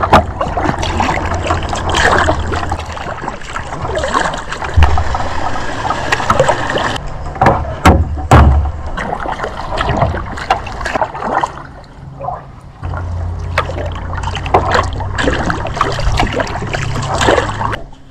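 Kayak paddle strokes dipping and splashing in calm river water, with water trickling off the blades between strokes, at an irregular pace. A low rumble runs underneath, with a few heavier thumps in the first half.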